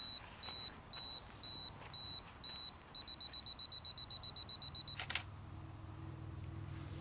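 Digital camera self-timer beeping about twice a second, then switching to rapid beeps about three seconds in as the countdown ends. The shutter clicks just after five seconds. A small bird chirps repeatedly in the background.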